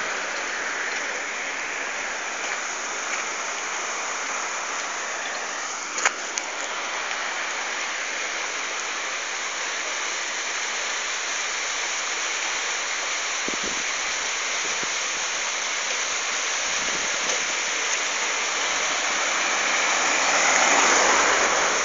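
Steady rushing wind and road noise, with a single sharp click about six seconds in and a swell near the end.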